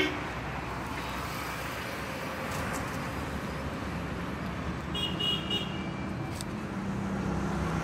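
Steady road traffic noise, with a short pulsed vehicle horn beep about five seconds in.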